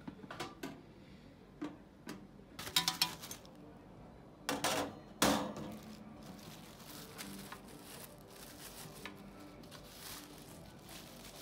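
Handling noise from a new electric toaster oven and its wire rack: a series of sharp metallic clinks and knocks, the loudest about five seconds in, followed by quieter crinkling of plastic packaging.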